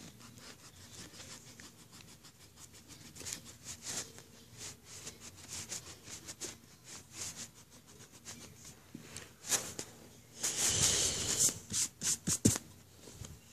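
Rubber eraser rubbing on paper in quick back-and-forth strokes, erasing a pencil line that was drawn too long. Near the end comes a louder stretch of brushing, followed by a few sharp knocks.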